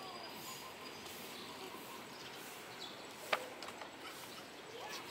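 Faint open-air ambience, a steady low hiss with a few faint chirps, broken by one sharp click a little over three seconds in.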